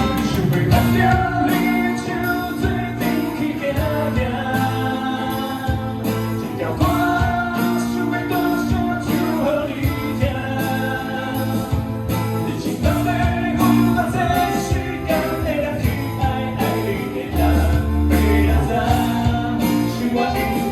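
Live band music: a rock band of electric guitars, bass and drums playing the song, with a melodic lead line over the beat.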